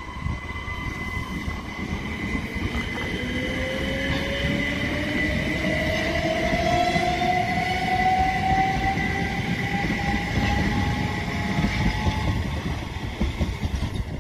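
Southern Class 377 Electrostar electric multiple unit pulling away and accelerating. Its traction equipment whines, one tone rising steadily in pitch as it gathers speed and a higher tone held steady, over a low rumble of wheels on the track.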